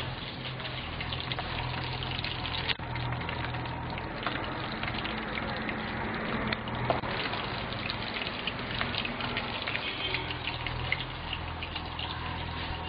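Crabs deep-frying in hot oil in a metal pan: a steady sizzle dotted with many small crackles and pops.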